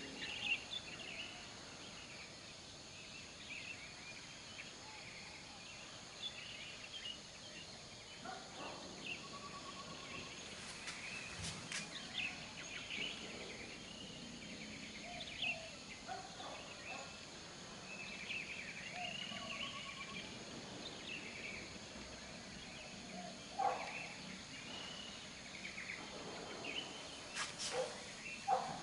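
Outdoor ambience: small birds chirping and twittering now and then over a faint steady hiss, with a few light clicks.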